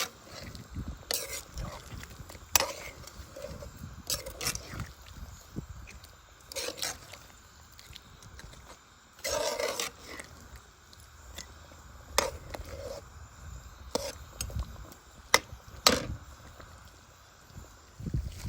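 Cooking pot being stirred: a utensil knocks and scrapes against the pot about ten times at irregular intervals, over a low steady rumble from the cooking.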